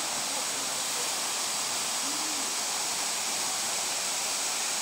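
Waterfall rushing steadily: an even hiss of falling water.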